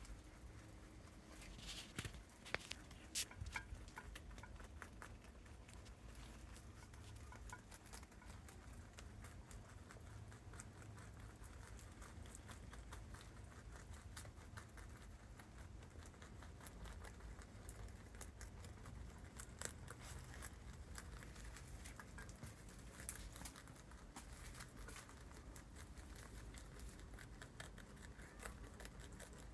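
Pet rabbits chewing food: rapid, faint crunching clicks that go on throughout, a few louder crunches in the first few seconds.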